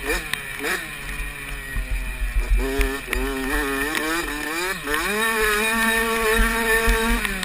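Dirt bike engine heard from a camera mounted on the bike, revving up and down through the gears. The pitch falls over the first couple of seconds, then climbs in steps from about three seconds in, holds high and steady, and drops sharply near the end. Low thumps sound under it.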